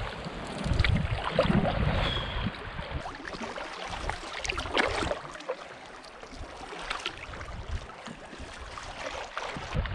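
Canoe paddle strokes in lake water, a splash and trickle every two seconds or so. Wind rumbles on the microphone for the first few seconds.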